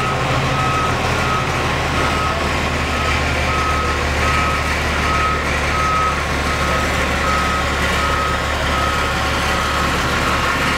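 Reversing alarm of heavy construction machinery beeping steadily at an even pace, over the low steady drone of a large engine running, inside a road tunnel.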